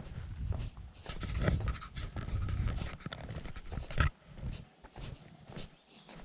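Footsteps on a trail with rustling and handling noise on the microphone, irregular clicks and one sharp knock about four seconds in.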